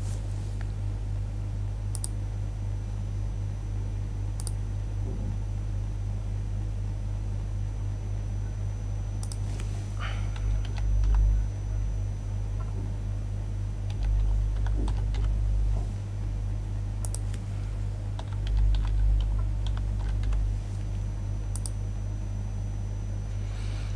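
Sparse computer keyboard typing: scattered keystrokes as a username and password are entered, over a steady electrical hum. Three stretches of low rumble, about ten, fourteen and eighteen seconds in, are the loudest sounds.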